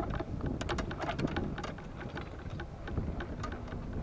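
Golf cart driving, with golf clubs clinking and rattling against each other in the bag in many quick irregular clicks over a low rumble.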